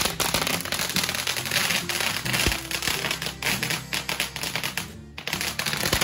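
Ground firework fountain crackling: a dense, rapid string of small pops and crackles that briefly dies away about five seconds in, then crackles on again.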